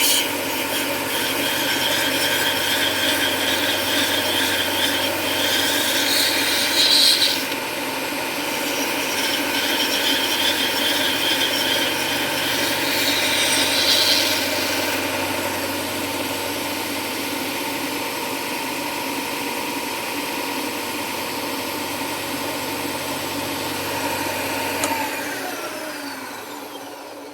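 Electric rotary sanding tool grinding down the polymer grip of a WE airsoft pistol, its motor whine steady under a harsh scraping that gets brighter twice as the bit is pressed harder. Near the end the tool is switched off and the whine falls as it spins down.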